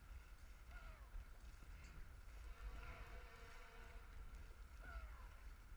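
Faint low wind rumble on the camera microphone over quiet water around the dragon boat, with two faint short calls falling in pitch, about a second in and near the end.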